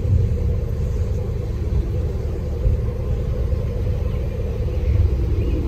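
Wind buffeting the microphone: a steady low rumble that swells in gusts.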